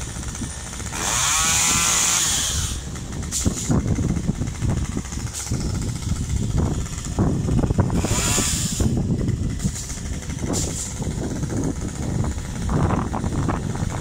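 Chainsaw revving up hard twice, about a second in and again about eight seconds in, each time for a second or two, with a low engine drone running in between.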